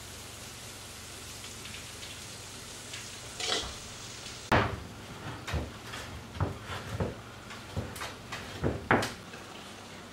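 Dough being mixed in a bowl as flour goes in: a swish, then a run of irregular knocks and thuds against the bowl, the first about four and a half seconds in the loudest.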